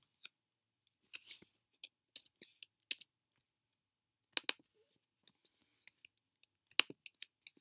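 Computer keyboard keys clicking in irregular, scattered taps as text is typed, with a couple of louder clicks about halfway through and near the end.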